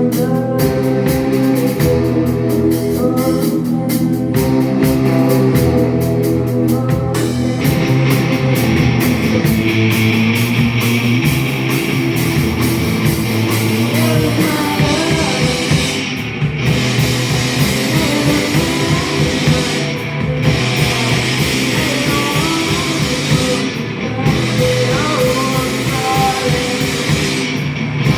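Rock music with guitar and drums, loud and steady; it grows fuller about seven seconds in, and the highest sounds drop out briefly about every four seconds later on.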